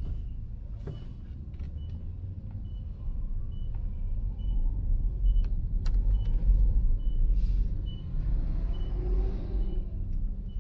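Steady low rumble of slow-moving road traffic, cars and motorcycles, with a faint high tick repeating about every two-thirds of a second. The traffic noise swells louder for a couple of seconds near the end.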